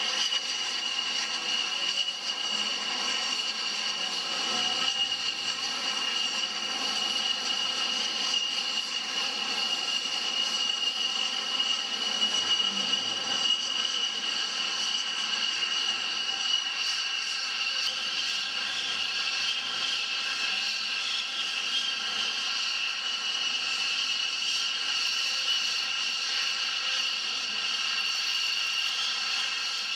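Jet aircraft engines running with a steady high whine over a rushing noise, holding an even level throughout.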